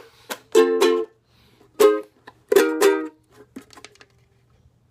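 Ukulele strumming the closing chords of the song: a handful of separate chords, some in quick pairs, over the first three seconds, then only faint string sounds.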